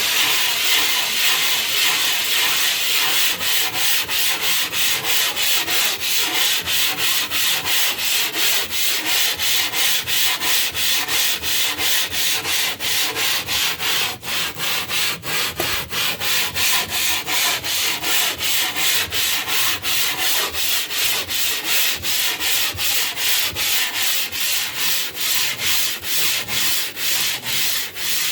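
Limestone block being ground flat, rubbed back and forth in loud, gritty scraping strokes about three a second.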